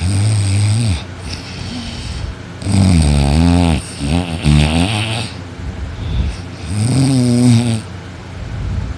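A sleeping person snoring loudly: four strong low snores with a wavering pitch (one at the start, two back to back in the middle, one near the end), with quieter breaths between.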